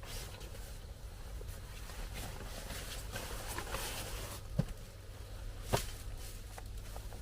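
Two sharp knocks about a second apart, over a steady background of noise and low hum with scattered faint ticks.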